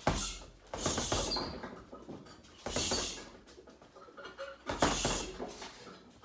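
Flurries of fast punches thrown with 20 oz boxing gloves into a heavy punching bag. They come in four short bursts of rapid slaps about two seconds apart.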